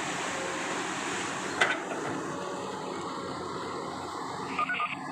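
Long-reach excavator's diesel engine running steadily, with one sharp knock about a second and a half in.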